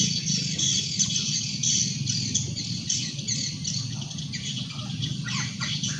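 Continuous high chirping of small birds and insects, many short repeated calls, over a low, fast rattling hum.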